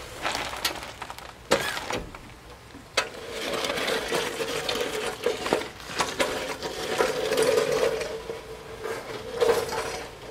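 Steel floor jack and jack stands clanking and rattling as a van is let down off the stands, with sharp metal clanks about half a second, a second and a half and three seconds in, and a steady tone under continuous clatter through the rest.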